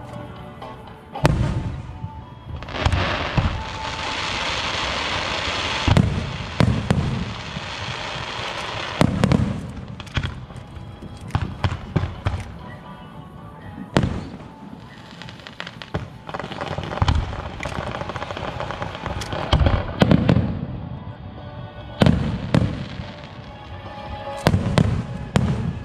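Aerial fireworks display: shells going off in an irregular run of sharp bangs and deep booms, some in quick clusters. A steady crackling hiss fills a stretch from about two to six seconds in.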